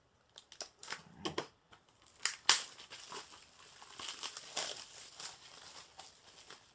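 Plastic shrink wrap being torn and peeled off a Blu-ray case, crinkling, with scattered clicks at first and one sharp snap about two and a half seconds in.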